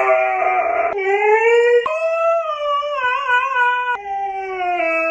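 A dog howling in a run of long held notes: one rises, one wavers in the middle, and near the end the howl settles on a steady lower note.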